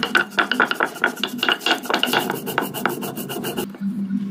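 Stone roller rubbed fast back and forth on a flat grinding stone (sil-nora), crushing ginger and radhuni seeds into a paste, with quick gritty scraping strokes. The grinding stops near the end.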